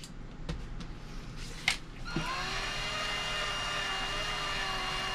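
Small cordless drill's motor running free in the hand, not cutting into anything: a steady whine that starts about two seconds in and lasts about three and a half seconds. A couple of light clicks come before it.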